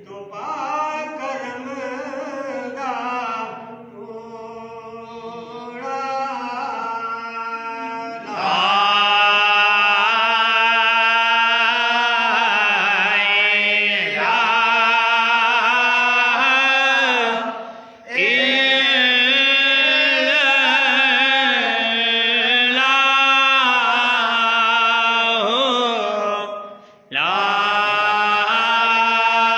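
A man's voice chanting Sufi zikr in long melodic phrases over a steady low drone. The lead voice grows much louder about eight seconds in and pauses briefly twice.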